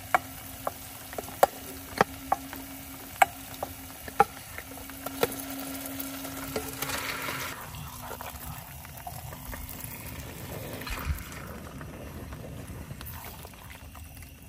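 Marinated chicken frying in hot oil and masala in a pan, a steady sizzle with a scatter of sharp clicks over the first five seconds. A steady low hum runs under it until about eleven seconds in.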